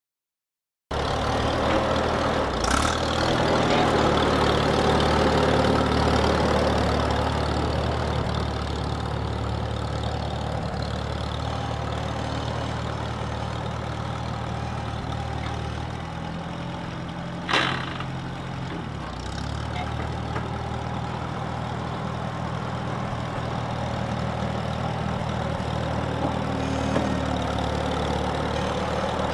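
Allis-Chalmers D17 tractor's four-cylinder gas engine running steadily as the tractor is driven slowly across grass, starting about a second in. A single sharp click sounds a little past halfway through.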